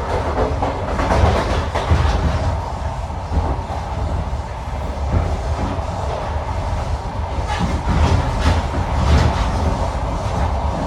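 Passenger train carriage rolling along the track: a steady low rumble with clusters of wheel clacks over rail joints, about a second in and again near the end.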